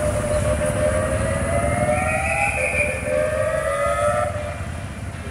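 Ambulance siren wailing in slow rising sweeps, cutting off about four seconds in, over a low rumble of street traffic.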